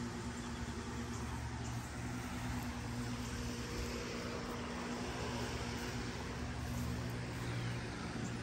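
Electric stall fan running steadily: a constant motor hum under an even rush of moving air.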